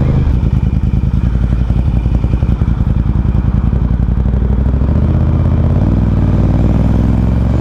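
Ducati Diavel's V-twin engine running as the motorcycle rides along, heard close up with a steady pulsing exhaust note. The engine note changes pitch about five seconds in.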